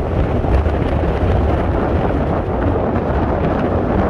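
Wind buffeting the microphone: a loud, steady, low rumble that covers any sound of the passing tram and road traffic.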